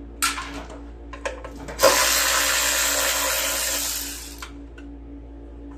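Power drill with a 10 mm socket backing out a starter-housing bolt: a short burst, then a steady run of about two and a half seconds that winds down.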